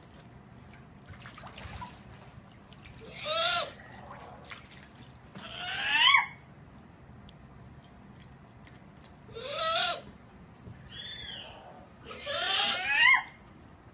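A bird calling repeatedly: about five short calls, each rising in pitch, a few seconds apart, the loudest about six seconds in and near the end.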